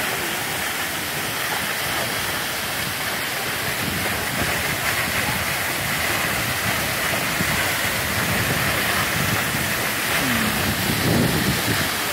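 Tall waterfall plunging onto rocks, a steady rush of falling water that grows slightly louder near the end.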